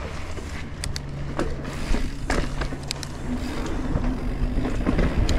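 Mountain bike rolling down a dirt and rock trail, heard from a camera on the rider: a steady rumble of tyres and wind with scattered sharp clicks and rattles, growing louder as it gathers speed.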